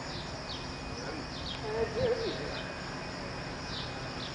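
Small birds chirping: short, high, falling notes repeated a couple of times a second over a steady background of noise, with a brief low wavering sound about halfway through.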